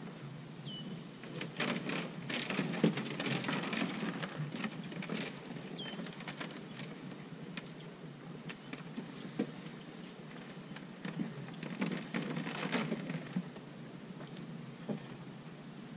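Cattle feed poured from a sack into metal troughs, a dense rattling patter in two spells, about two seconds in and again about twelve seconds in. Two short high chirps from a small bird.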